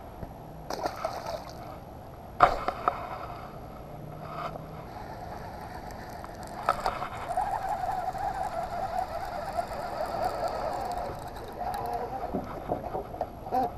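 Handling knocks, one sharp knock about two and a half seconds in and lighter ones around it, then a baitcasting reel cranked in a steady whir for about four seconds.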